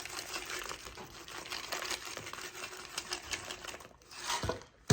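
Chopped nuts sprinkled over the hard Magic Shell top of an ice cream cake: a quick irregular run of small light clicks as they land, then a sharp knock at the very end.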